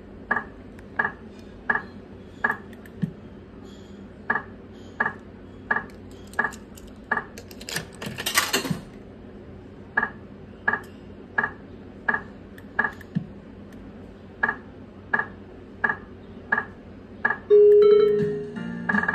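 Cristaltec bar video slot machine beeping electronically in a steady rhythm, about three short high beeps every two seconds, while its reels spin. A brief noisy rattle comes about eight seconds in. Near the end a louder, held electronic win tone sounds as three sevens line up for a win.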